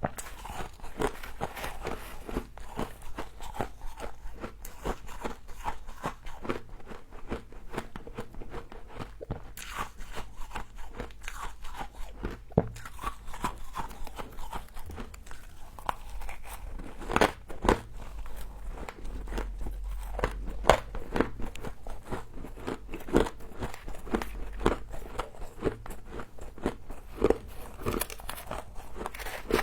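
Close-miked biting and chewing of frozen humidifier frost: a dense, irregular run of crisp crunches and crackles as the icy granules break between the teeth, with a few louder bites.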